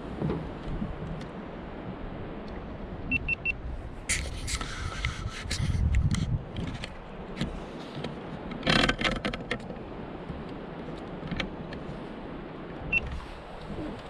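Knocks, scrapes and rubbing from a camera being handled and turned, over a low rumble, with the loudest clatter about four and nine seconds in. Three short high beeps come a little after three seconds.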